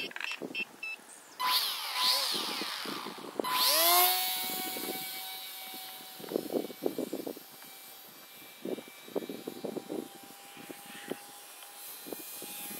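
WLtoys F949 model plane's small electric motor and propeller. The pitch swoops up and down, then rises sharply to full throttle about four seconds in, and settles into a steady whine that fades as the plane flies away.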